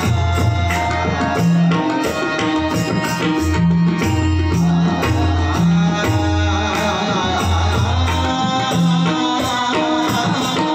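Tabla and pakhavaj drumming in a fast rhythmic accompaniment, with deep booming bass strokes and quick sharp strokes, over a held melody.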